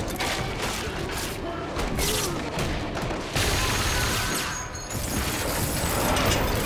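TV action-scene sound mix: a dramatic music score under gunfire and fight impacts, with a sudden loud hit about three and a half seconds in.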